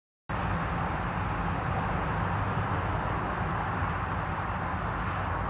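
Car wash running: a steady rushing noise with a low droning hum underneath.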